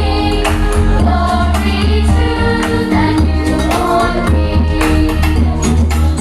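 Music: voices singing together over a band with a strong bass line and regular percussion.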